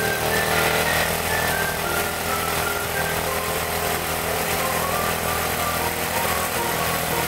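Honda FTR223's single-cylinder four-stroke engine idling steadily, with light background music playing over it.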